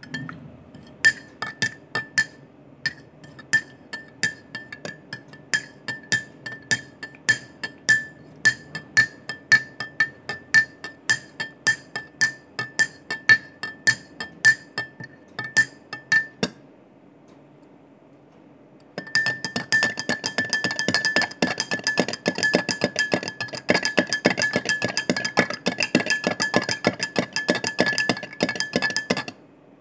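Teaspoon stirring coffee in a cup, clinking against the side about three times a second with a steady ringing tone. It stops about 16 seconds in, and after a short pause starts again as fast, continuous clinking for about ten seconds.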